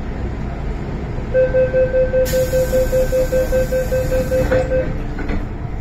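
MTR Island Line M-Train door-closing warning, a rapid beeping at about four beeps a second for some three and a half seconds over the train's steady rumble. A burst of hiss comes partway through, and two knocks near the end as the doors shut.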